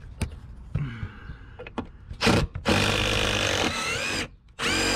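Cordless power driver sinking an 8-inch TimberLok screw up into old porch framing. It gives a short blip, runs steadily for about a second and a half with its pitch rising briefly, stops, then starts again near the end. The screw spins in freely because it goes into absolutely nothing solid behind the board.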